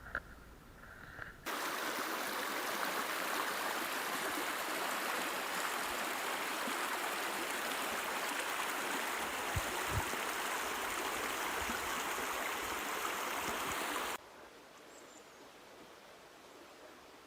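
River water rushing steadily over rocks. The sound starts and stops abruptly, about a second and a half in and again near the end.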